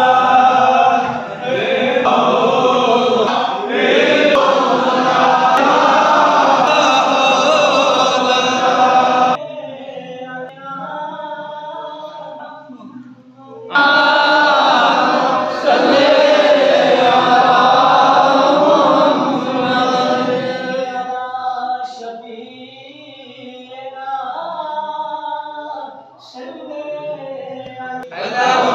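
A group of men chanting together in devotional recitation. About ten seconds in it drops to a quieter few voices. The full group comes back loud a few seconds later, then falls quieter again for the last several seconds.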